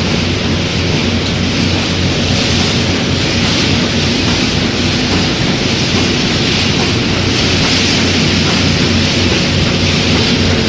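Automatic wire mesh welding machine running: a loud, steady mechanical din with a low electrical hum underneath.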